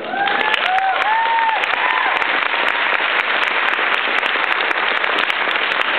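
Banquet audience applauding steadily, with a few whooping cheers over it in the first two seconds.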